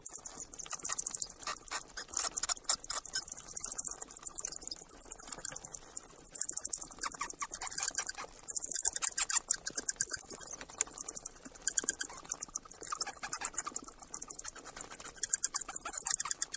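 Rats squeaking: rapid runs of very high-pitched squeaks in uneven bouts, with softer chattering lower down.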